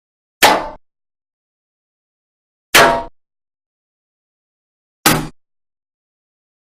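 Bullet-impact sound effect on thin metal: three sharp hits about two and a half seconds apart, each a crack with a short ring that dies away within about a third of a second.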